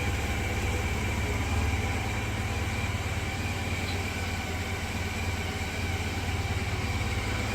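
Honda motorcycle engine idling steadily.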